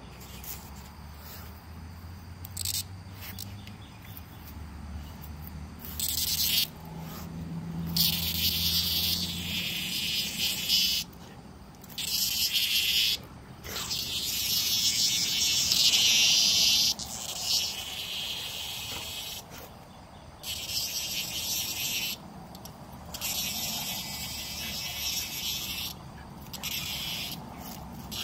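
Cicada buzzing in harsh bursts of one to three seconds that start and stop abruptly, about half a dozen times: the distress buzz of a cicada being pawed by a dog.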